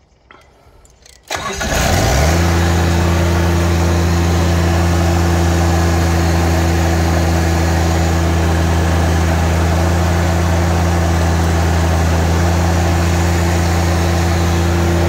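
Scag Turf Tiger zero-turn mower's diesel engine, its glow plugs warmed, cranking briefly a little over a second in, catching with a quick rise and settling into a steady idle.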